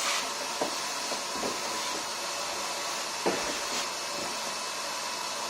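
Vacuum cleaner running steadily as it cleans a car carpet, with a few light knocks from the nozzle.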